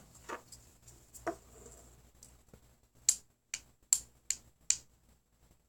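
Guitar pickups tapping face to face, their magnetic pole pieces clicking against each other as they are tested for polarity. A few faint clicks, then five sharp clicks in quick succession about three seconds in.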